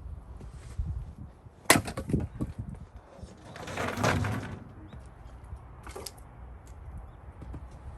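A Gränsfors Bruk axe strikes a cherry round sharply about two seconds in, and the split pieces clatter down in a few quick knocks. A longer rough noise follows around four seconds in, and a lighter knock about six seconds in.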